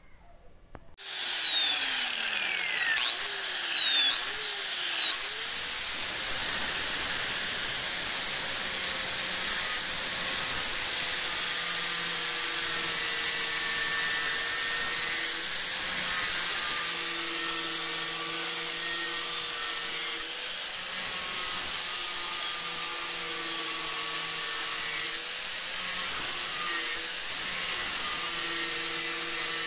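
Electric grinder with an abrasive disc grinding a steel machete blade cut from a chainsaw guide bar. It starts suddenly about a second in, its whine dipping and recovering a few times before holding steady, with a lower hum coming and going as the blade is worked against the disc.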